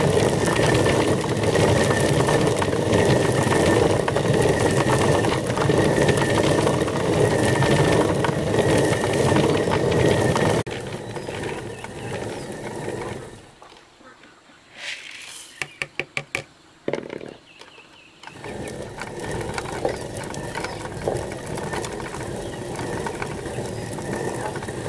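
Stone hand mill grinding dried corn kernels: a steady grinding rumble of the turning stone, loud for about the first ten seconds. It drops away for a few seconds past the middle, where a quick run of clicks is heard, then resumes more softly.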